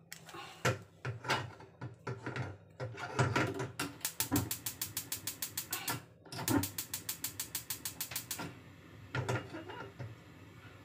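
Gas stove's electric igniter clicking rapidly, about ten clicks a second, in two runs of about two seconds each as the burner knob is turned to light it. A few irregular knocks and clatters come before it.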